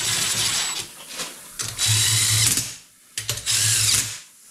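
Cordless drill with a socket running bolts down on an electric motor's end bell, in three spurts of a second or so each.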